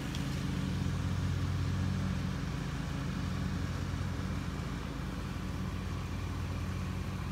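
Steady low mechanical hum, like a motor or engine running at an even speed.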